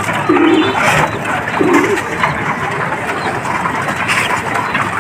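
Domestic pigeons cooing, with two low coos in the first two seconds, over the busy ticking and scuffling of a flock pecking grain on the ground.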